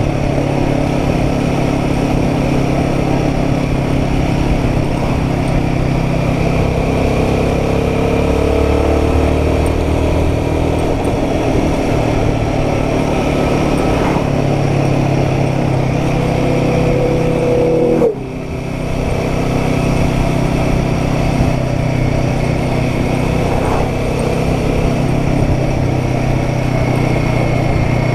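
Royal Enfield Guerrilla 450's single-cylinder engine running on the road. The revs climb twice, and about 18 seconds in they drop off sharply for a moment before building again.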